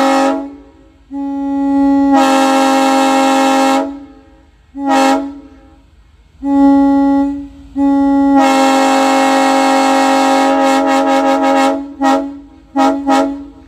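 Locomotive air horn sounded in a series of blasts: several long chords, one short one, then three quick toots near the end, with an echo.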